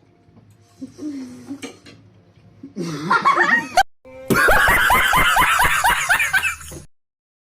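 Loud laughter, a quick run of short ha-ha-ha calls over music, that cuts off suddenly about seven seconds in.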